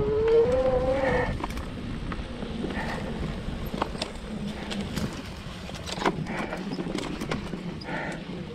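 Electric mountain bike riding over a rough, sandy trail: rattling and sharp clicks from the frame and tyres, a whine rising in pitch during the first second, and a steady low hum from about five seconds in.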